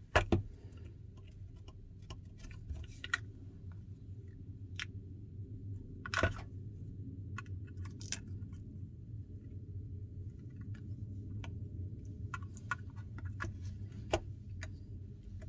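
Scattered small clicks and taps as tools press flex-cable connectors onto an iPhone 12's logic board, the loudest right at the start and others about six, eight and fourteen seconds in, over a low steady hum.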